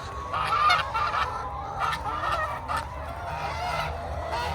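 Geese honking, many short calls over one another, over a low steady hum.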